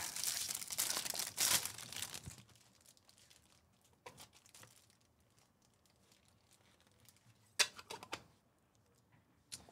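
A trading-card pack wrapper being torn open and crinkled for about two and a half seconds, then faint handling and a short burst of crinkling about eight seconds in.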